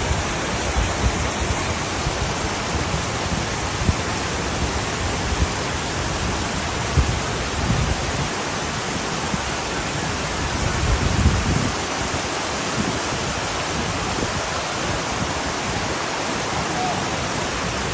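Waterfall: a steady, loud rush of falling water, with a few brief low bumps.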